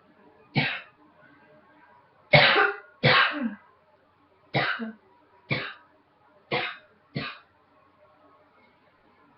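A woman coughing: seven separate coughs at uneven intervals, the loudest two close together about two and a half and three seconds in, the last two the shortest.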